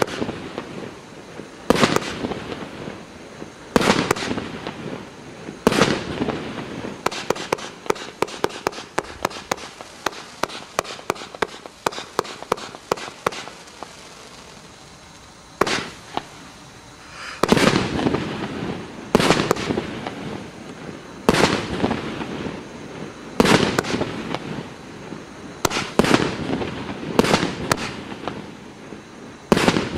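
FP B307 "Armageddon" 120-shot multi-calibre firework cake firing: loud bangs about every two seconds, then a quick run of small rapid shots, a brief lull, and closer-spaced heavier bangs with shots crackling between them to the end.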